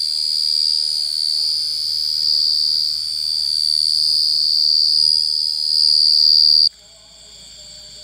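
A cricket singing a loud, steady, high-pitched trill close by, which stops suddenly near the end, leaving a fainter trilling from other insects in the background.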